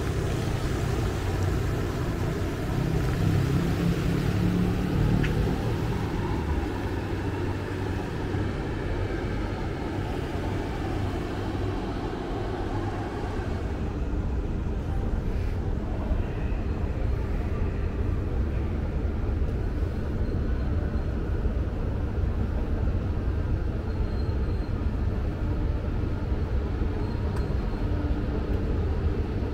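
Steady low rumble of background ambience, with no clear separate events.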